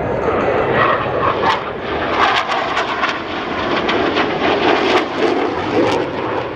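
Jet engine noise from KAI T-50 Golden Eagle jets flying a display pass: a steady rushing roar broken by many sharp crackles through the middle.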